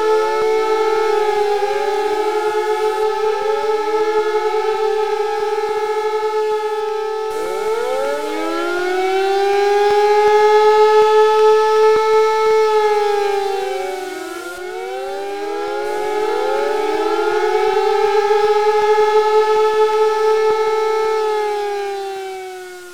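Alarm siren wailing: a steady multi-tone wail with many overlapping rising and falling tones, swelling and fading in slow waves of several seconds. It fades away near the end.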